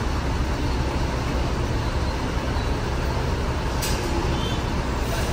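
Coach bus's engine running at low speed as the bus creeps forward, a steady low rumble. A brief air hiss comes about four seconds in.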